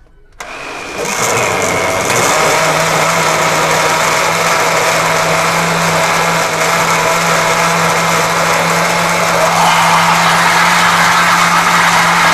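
Countertop Delfon blender switching on about half a second in, building up to speed and running steadily, liquidising yogurt with mint, coriander and green chillies.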